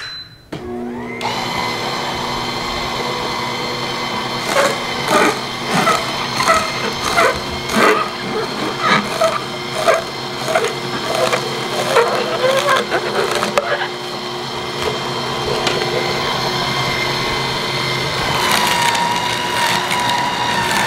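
AMZChef horizontal slow masticating juicer's motor running while celery is fed in, with repeated cracking and snapping as the auger crushes the stalks, about one to two a second. Near the end a higher-pitched motor whine from the Dash vertical cold press juicer comes in.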